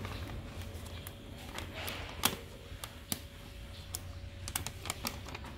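Irregular light clicks and taps from hands handling printed plastic packaging film and a photoelectric mark sensor on a packaging machine, the sharpest about two seconds in, over a faint steady hum.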